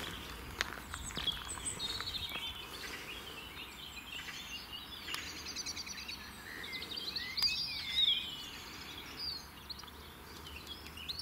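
Several small songbirds singing and chirping together, a mix of quick trills and short whistled notes, loudest around the middle.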